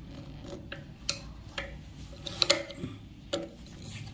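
A screwdriver clicking and ticking against the screws and metal of a sewing machine's shuttle race while the screws holding the shuttle are loosened: about half a dozen short, sharp clicks at uneven intervals.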